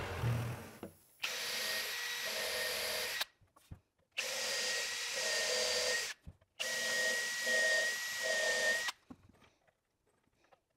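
Power drill driving screws into wood: three runs of about two seconds each, a steady whine.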